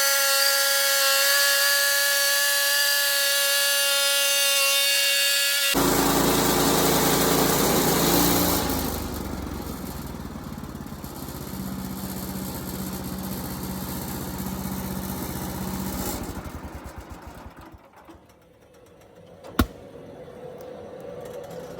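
Woodland Mills HM126 band sawmill cutting a slab off a white oak cant. A loud, steady high whine for about six seconds gives way suddenly to a rougher, lower running sound, which fades out about two-thirds of the way through. A single sharp click comes near the end.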